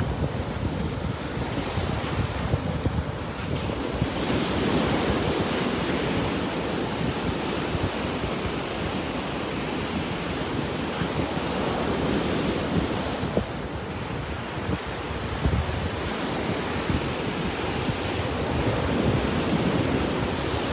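Small surf breaking and washing up the sand, the rush swelling and fading about every seven seconds, with wind buffeting the microphone.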